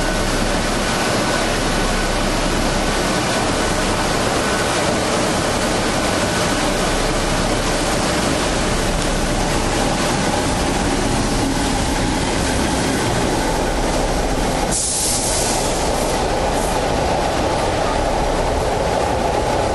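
Electric locomotive-hauled passenger train pulling into a station platform: a steady rolling and wheel noise from the locomotive and coaches. A brief hiss comes about three-quarters of the way through.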